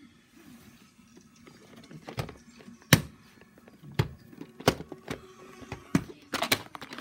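Sharp plastic clicks and knocks from a clear plastic VHS clamshell case being handled and set down, about half a dozen separate clicks, the loudest about three seconds in and a quick cluster near the end.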